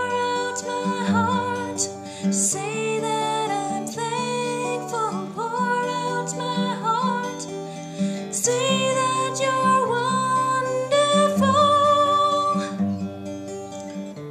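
Acoustic guitar finger-picked in a repeating p-i-m-a-m-i arpeggio pattern in 3/4 time, with a woman singing along in a sustained, wavering melody.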